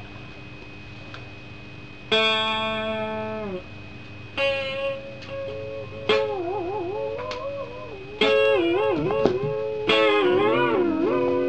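Guitar played in single plucked notes about every two seconds, each left ringing and bent in pitch: the first glides down, the later ones waver up and down.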